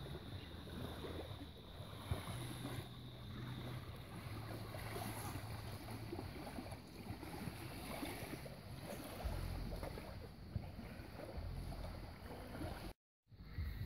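Small waves lapping against the stones of a lake shore, with wind rumbling on the microphone.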